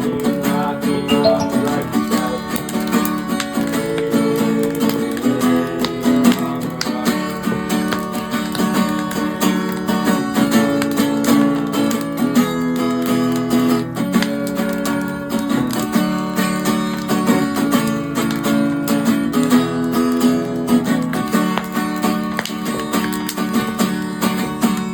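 Acoustic guitar strummed and picked in a steady instrumental chord passage.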